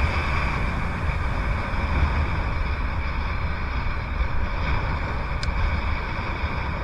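Wind buffeting the microphone with water rushing past a speed-surfing board: a steady, rumbling hiss. There is one faint tick about five and a half seconds in.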